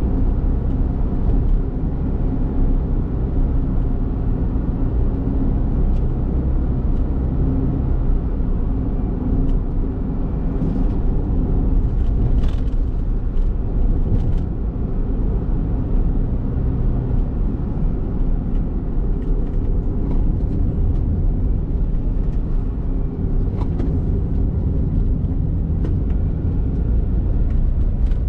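Honda kei car on the move: steady engine hum with tyre and road noise, and a few brief clicks or knocks.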